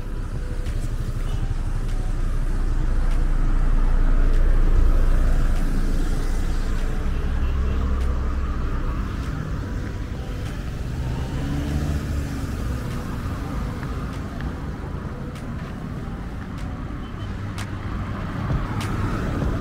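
Road traffic: motor vehicles passing close by, the loudest swelling up about four to five seconds in and then fading, with more passing later.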